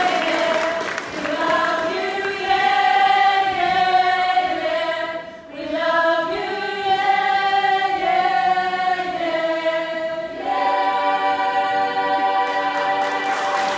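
A group of voices singing a song together in harmony, with long held notes and a brief break about five and a half seconds in.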